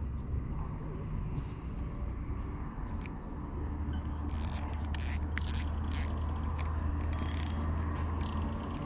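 Spinning reel being cranked to take up line, a steady mechanical whirring, with about five short rasping bursts between about four and seven and a half seconds in.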